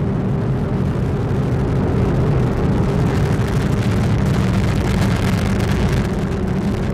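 Atlas V rocket's RD-180 first-stage engine rumbling steadily with a dense crackle as the rocket climbs after liftoff.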